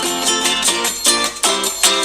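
A Tecno phone stock ringtone playing: a quick melody of short plucked-string notes, about four a second.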